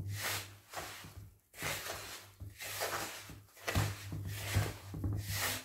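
Hands rubbing fine semolina mixed with chopped spring-onion greens and mint in a bowl: repeated gritty swishes, about one stroke a second, as the semolina is worked with the water wrung from the herbs so it starts to clump into dough.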